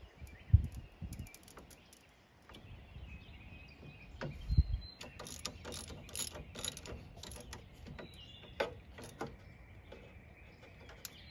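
Small ratchet wrench clicking in short irregular runs as it turns an A/C condenser line fitting, with a couple of dull knocks from the tool against the fitting and bracket.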